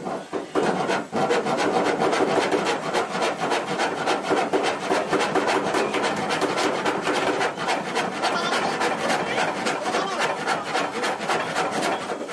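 A handsaw cutting through a wall board in quick, steady back-and-forth strokes, each stroke a dry rasp.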